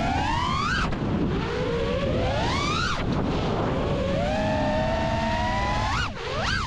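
FPV freestyle quadcopter's brushless motors and propellers (Blackbird v3 1975kv motors on 6S, HQ J37 props) whining, the pitch sweeping up and down with the throttle. It rises twice to a peak in the first three seconds, holds steadier, then rises and falls sharply near the end, over wind rush on the onboard microphone.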